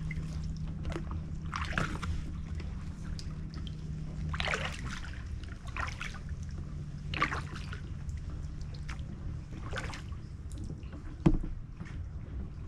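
Double-bladed kayak paddle dipping into calm water, with splashes and drips every one to three seconds as the blades come out. A single sharp knock near the end.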